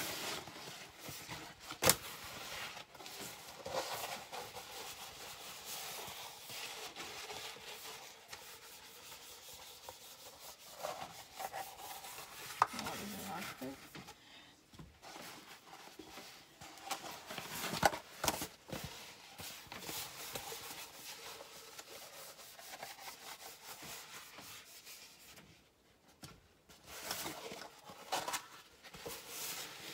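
Wrapping paper around rolled canvases being unrolled and handled: continuous paper rustling and crinkling, with a few sharper crackles.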